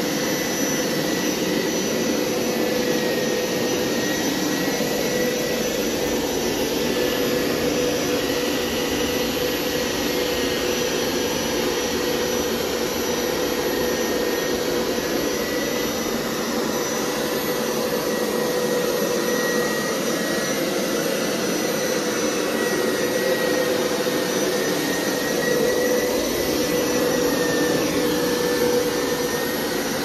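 Hoover PowerScrub XL carpet cleaner running steadily as it cleans the carpet: a constant rush of air with a steady hum and a higher whine.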